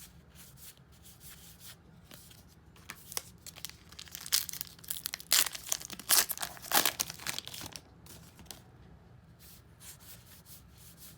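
Trading card pack wrapper being torn and crinkled by hand. A quick run of rips and crinkles comes in the middle, with quieter rustling before and after.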